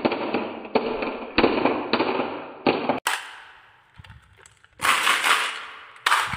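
Marbles rolling and clattering down a carved wooden wave track and dropping into a plastic toy dump truck, with many sharp clicks over a rolling rumble. After a sudden break about three seconds in, the marbles rattle loudly in the plastic truck bed twice as the truck is handled.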